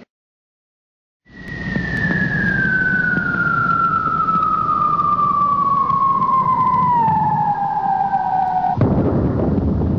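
Falling-bomb sound effect: a long whistle dropping steadily in pitch over about seven seconds above a rushing noise, broken off about nine seconds in by a loud, rumbling explosion.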